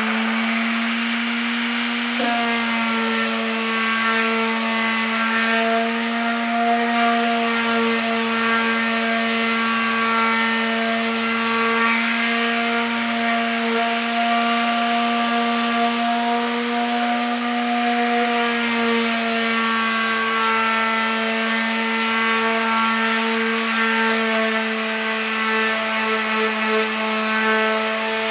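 Electric palm sander sanding a wooden 2x4, running at a steady speed: a constant motor whine with the rasp of the sanding pad rubbing on the wood.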